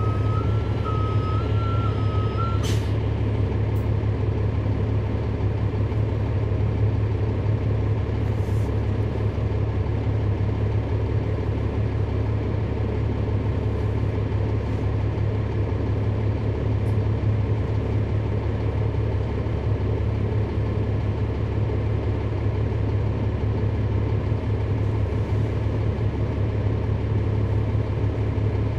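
Cummins ISL9 diesel engine of a NABI transit bus, heard from on board, running with a steady low drone. A high electronic tone sounds for the first three seconds or so and ends with a click.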